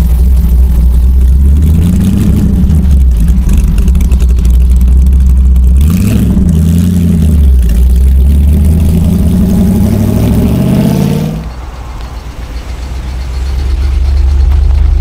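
Classic American V8 car engine running loud and low, then revving with a rising pitch over several seconds before falling away suddenly about eleven seconds in; engine sound builds again near the end.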